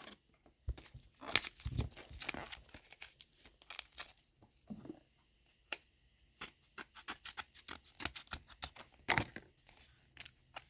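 A trading card pack's wrapper being torn open and crinkled, with the cards handled: a scatter of short tearing and crackling sounds, bunching into a quick run in the second half.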